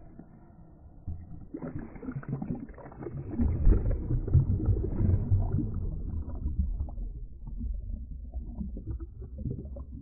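Ocean wave breaking over a camera at the waterline and submerging it: a muffled, low churning rumble of turbulent water heard from underwater. It swells about a second and a half in, is loudest in the middle, then eases off.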